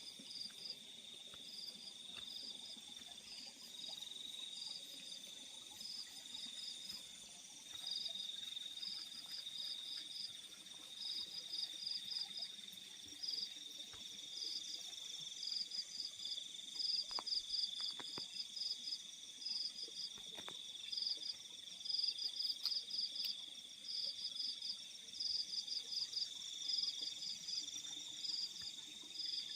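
Night chorus of crickets: one insect trills in a steady unbroken tone while a higher-pitched one chirps in quick runs of pulses with short gaps between them, over a fainter high hiss of more distant insects.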